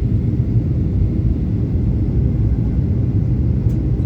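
Steady, even low rumble of a passenger airliner's engines and airflow as heard inside the cabin.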